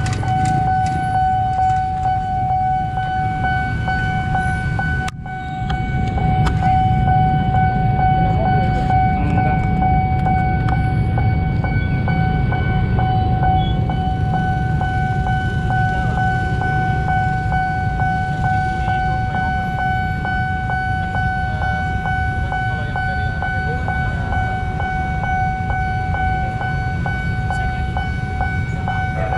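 Railway level-crossing warning alarm sounding one steady, unbroken high tone, over a low rumble of traffic waiting at the closed crossing.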